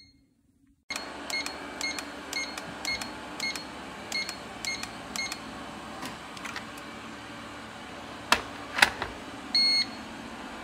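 Electric kettle's control-panel beeper sounding a run of about ten short, high beeps, roughly two or three a second, as its buttons are pressed. Two sharp clicks follow later, and one longer beep comes near the end.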